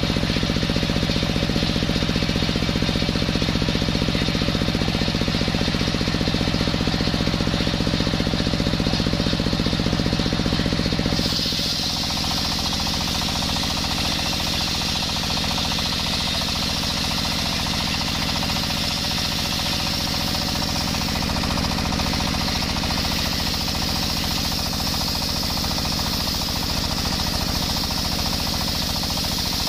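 Circular saw bench ripping a coconut-wood log, its blade belt-driven by a stationary diesel engine that runs steadily under the cutting noise. About eleven seconds in the sound changes: the low engine note drops back and a higher, hissing whine from the blade comes up and holds.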